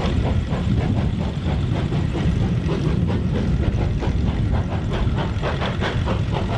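An engine running steadily: a low rumble with a regular beat about four times a second.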